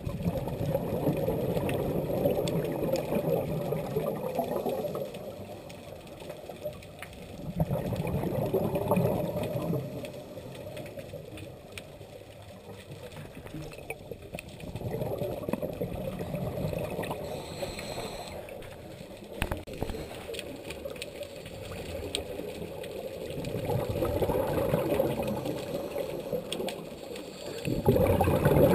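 Scuba exhalation bubbles from a regulator, a rushing, gurgling burst lasting a few seconds and repeating every six to eight seconds in time with a diver's breathing, with quieter gaps for the inhalations.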